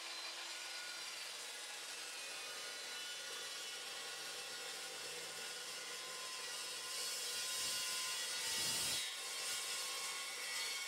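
Evolution Evosaw 355 chop saw, 355 mm carbide-tipped blade, running and cutting through 3-inch schedule 80 steel pipe. A steady hissing rasp with fine ringing tones grows louder and harsher from about seven seconds in.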